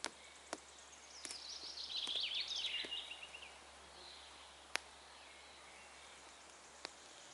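Small campfire of sticks and leaves crackling with a few sharp isolated pops, while a songbird sings a quick trill of chirps falling in pitch, starting about a second in.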